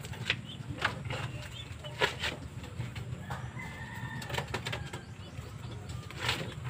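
Racing pigeons fluttering their wings in a bamboo loft, with a few short knocks and a faint bird call lasting about a second midway.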